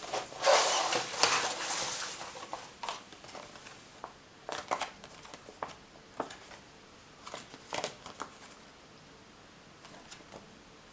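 Hands handling a knife and its packaging: about two seconds of rustling and crinkling, then a scattering of light clicks and taps.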